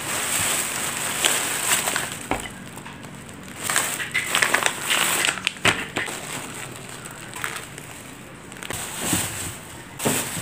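Thin clear plastic bag crinkling and rustling in irregular bursts as vegetables are taken out of it.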